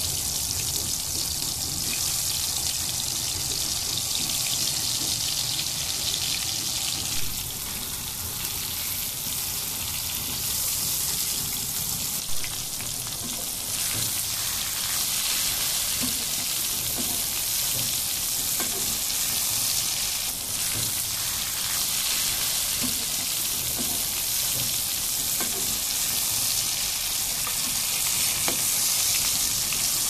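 Spiced eggplant slices frying in hot oil in a pan: a steady, even sizzle. Two brief light knocks come about 7 and 12 seconds in.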